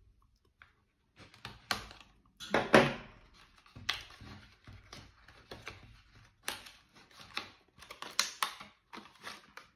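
A folding pocket knife slitting the seal of a small cardboard box, then the box being opened by hand and its plastic insert handled: a run of irregular clicks, scrapes and crackles of cardboard and plastic, the loudest about three seconds in.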